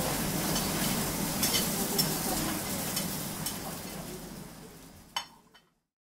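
Teppanyaki griddle sizzling, with a few light clinks of dishes and cutlery, fading out over the last few seconds; one last sharp clink comes just before it ends.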